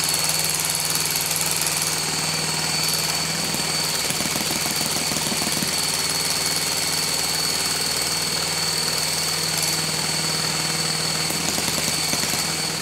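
Hand-held electric starter spinning a model four-stroke glow engine at a steady speed, with a steady high whine over the engine turning over. A finger over the carburettor intake draws fuel in and changes the engine note.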